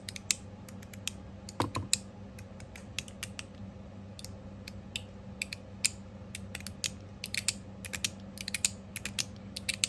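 Copper mechanical fidget slider being worked back and forth, its click tracks giving short sharp clicks at an uneven pace, sparse at first and coming thick and fast in the second half.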